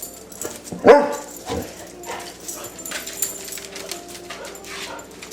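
Basset hound baying: one loud bark about a second in, then a shorter, weaker one, with only faint sounds after.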